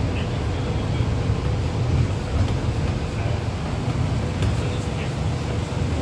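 A Scania N230UD double-decker bus's diesel engine and ZF automatic gearbox running steadily as the bus drives, heard inside the passenger cabin: a continuous low rumble with a faint steady whine and a few faint ticks and rattles.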